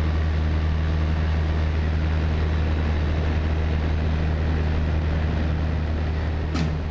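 Engine and propeller of a Tecnam P92 ultralight aircraft running at a steady, unchanging pitch, a constant low drone. Near the end, drum hits of background music come in over it.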